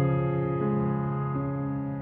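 Background piano music: soft held chords ringing out and fading, with a new note entering about halfway through and another near the three-quarter mark.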